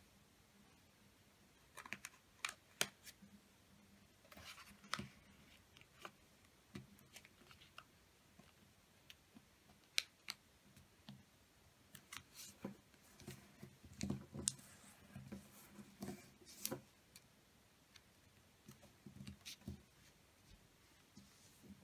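A sheet of origami paper being folded and creased by hand on a table: quiet, scattered crisp crinkles, clicks and brushing sounds of paper, some coming in short clusters.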